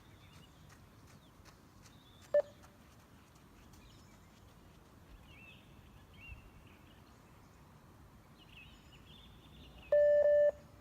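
Beep test (20 m multistage shuttle run) signal: one short beep about two seconds in, marking the end of a 20 m shuttle, then a longer beep at the same pitch near the end, about seven and a half seconds later, marking the end of level 3 just before level 4 is announced.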